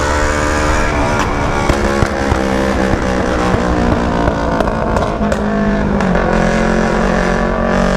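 Sport motorcycle engine running with its exhaust silencer removed while riding: a loud, rough, unmuffled "brrr" whose pitch falls and rises with the throttle, with a few sharp exhaust pops.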